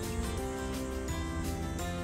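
Instrumental background music, its notes changing in a quick, steady rhythm.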